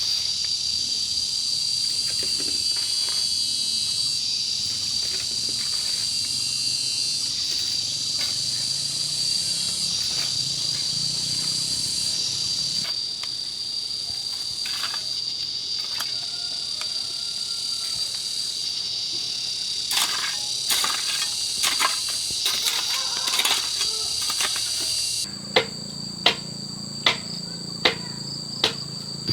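Insects droning steadily with one high, unbroken tone. Scattered sharp knocks join in over the second half, becoming a steady series of single knocks about once a second near the end, as of work on the house with a hand tool.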